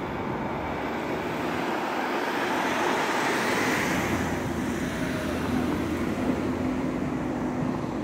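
Motorboat engine running steadily with a low hum, mixed with the rush of water from its bow spray and wash; the sound swells a little around the middle as the boat passes.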